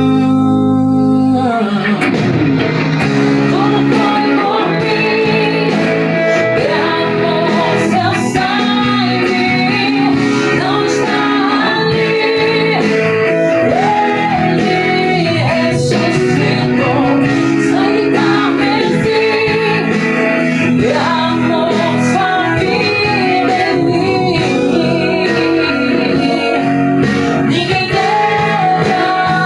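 A recorded gospel song with singing and band accompaniment, with an electric guitar played along over it.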